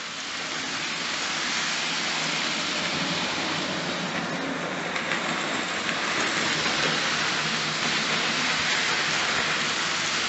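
Hornby OO gauge model train running past on the track: a steady rushing rattle of wheels on the rails, swelling in over the first second or two.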